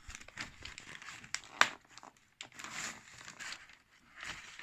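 Packaging being handled and opened: intermittent crinkling and rustling with scattered small clicks and taps.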